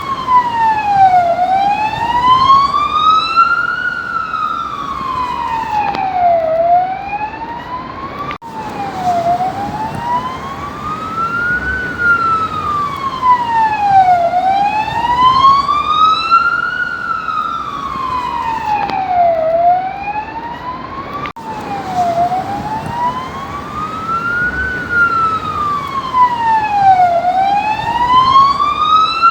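Police siren sounding a slow wail, its pitch rising and falling about every five seconds. Twice the sweep breaks off abruptly and starts again.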